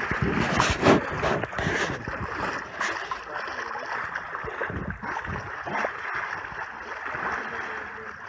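Water rushing and splashing against a moving boat's hull, with a few sharp splashes in the first second.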